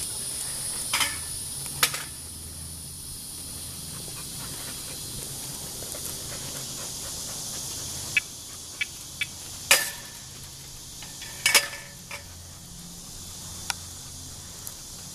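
Outdoor ambience: a steady high-pitched hiss that fades after the first few seconds, with about a dozen scattered sharp clicks and taps, several close together in the middle.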